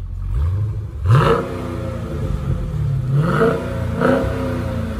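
Dodge Challenger SRT's Hemi V8 revved while parked: three sharp blips of the throttle, about a second in, just past three seconds and about four seconds in, with the engine note dropping back toward idle between them. This is the car's 'before' sound, still on its mufflers ahead of a muffler delete.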